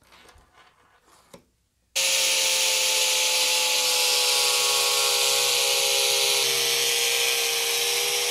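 DeWalt angle grinder running with a thin cut-off wheel, cutting a clear acrylic (plexiglass) sheet: a loud steady whine that starts abruptly about two seconds in and sags slightly in pitch about four and a half seconds in, as under load. Before it, faint rubbing and a small tap as the sheet is marked with a square.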